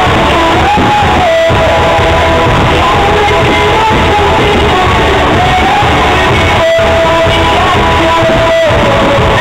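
Loud rock music with a singing voice, the soundtrack of a pyromusical fireworks show.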